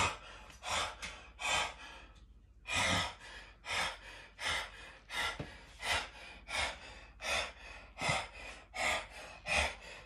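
A man panting hard, winded after a heavy set of squats: quick, loud breaths in and out, about one and a half a second, with one longer, deeper breath about three seconds in.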